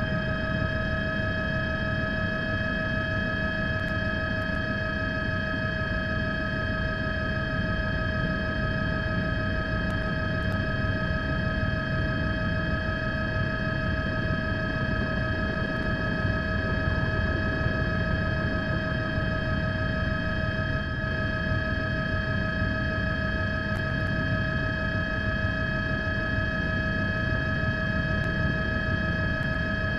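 Steady mechanical drone: a low rumble under several constant whining tones, unchanging throughout.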